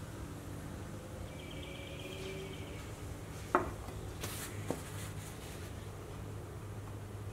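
A metal can of General Finishes Salad Bowl Finish set down on a workbench: one sharp knock about halfway through, followed by a couple of lighter clicks. A steady low hum and faint bird chirps run underneath.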